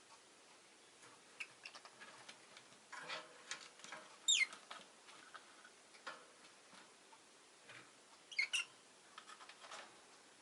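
Rosy-faced lovebird giving two short, sharp chirps that sweep downward in pitch, one about four seconds in and one about eight and a half seconds in. Faint soft clicks and ticks come between them.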